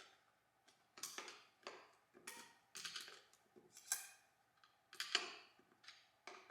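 Light, irregular metallic clicks and scrapes, about a dozen, as tools work a snap ring out of a TH400 automatic transmission part.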